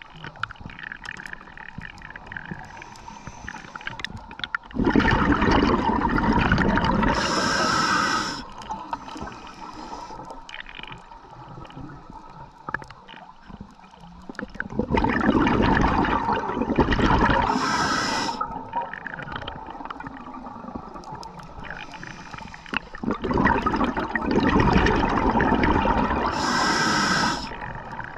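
Scuba diver breathing through a regulator underwater: three long bubbling exhalations about nine seconds apart, each with a short hiss near its end, and quieter water noise between them.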